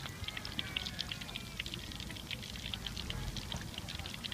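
Hot oil in a wok sizzling and crackling as small-shrimp fritters deep-fry: a dense, steady run of small pops.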